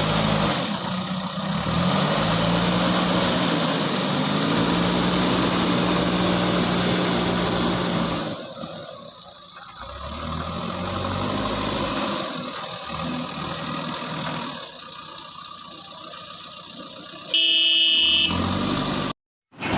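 Diesel engine of a JCB backhoe loader running under working load, its pitch rising and falling as the hydraulics are worked. Near the end a vehicle horn sounds for about two seconds, then the sound cuts off suddenly.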